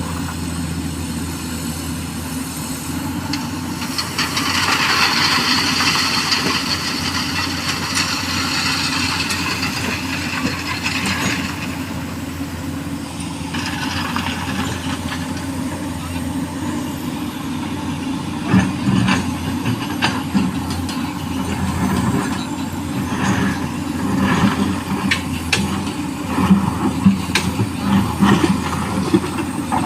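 Excavator's diesel engine running steadily while it loads small stones. A rushing, hissing pour runs for several seconds near the start, and a run of sharp knocks and clatters of stones follows in the second half.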